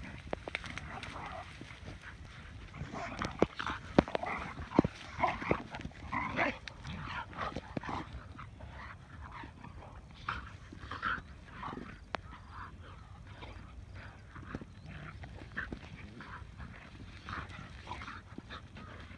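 Two dogs vocalising as they play-wrestle: a string of short calls, busiest in the first half and again about ten seconds in.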